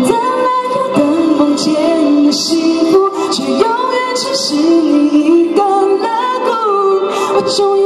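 A female pop singer singing a Mandarin pop song live into a handheld microphone over musical accompaniment, her voice carrying held notes and sliding between pitches.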